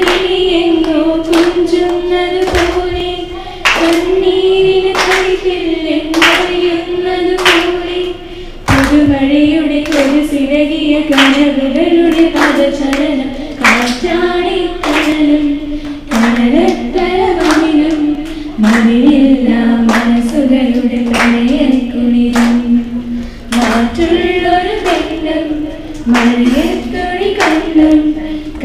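A group of girls singing a song together in sustained, held phrases, with sharp hand claps on the beat about once a second.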